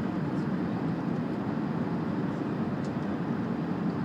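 Steady engine and airflow noise of an Airbus A380-800 on approach, heard from inside the passenger cabin as an even, low rushing drone.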